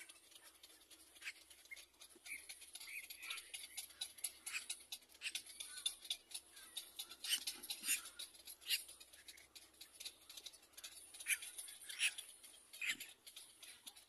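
Little black cormorant nestlings calling in the nest: rapid, irregular high-pitched squeaks and clicks, in denser clusters in the middle and near the end.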